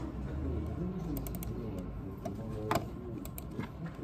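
A few scattered taps on a computer keyboard's keys, with one sharper click about three-quarters of the way through, over a low steady hum.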